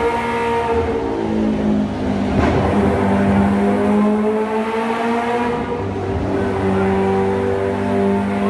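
Kawasaki H2R's supercharged inline-four engine revving and held at high revs, with a sharp blip about two and a half seconds in and a dip and climb in pitch near the end.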